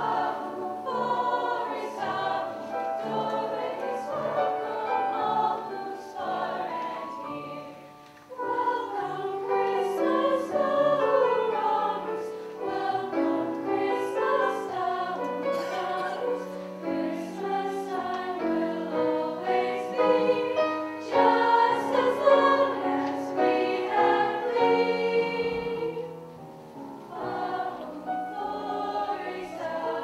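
A girls' choir singing with piano accompaniment, the phrases breaking off briefly about eight seconds in and again near the end.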